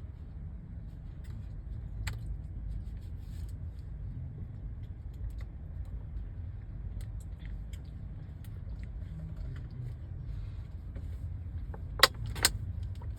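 Steady low rumble of a long freight train rolling past, heard from inside a car, with scattered light ticks and two sharp clicks close together about twelve seconds in.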